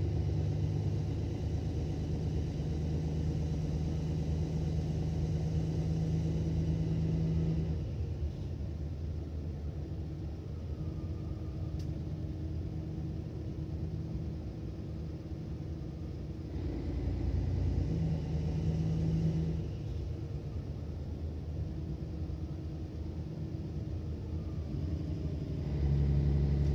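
Mercedes-Benz Citaro O530 city bus diesel engine and drivetrain heard from inside the passenger cabin as a low rumbling drone. It runs louder for the first several seconds, then eases off. It swells again about two-thirds of the way in, and once more near the end.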